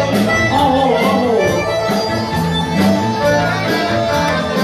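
Live Balkan folk band music played loud: an instrumental passage with a lead melody over a steady bass beat.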